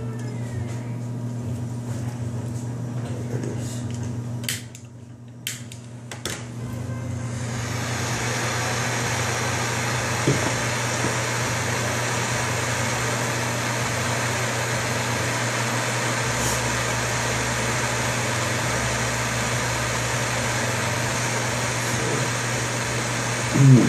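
Propane hand torch: a few sharp clicks about five seconds in, then the flame burning with a steady hiss from about seven seconds on as it heats the banger of a dab rig. A low mains-like hum runs underneath.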